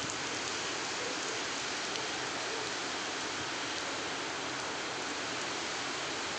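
Heavy cyclone rain and wind in the trees, making a steady, even hiss.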